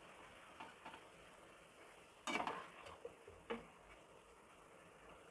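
A spatula stirring fried lauki koftas through thick curry gravy in a nonstick pan, with a few light scrapes and knocks against the pan; the loudest comes a little over two seconds in.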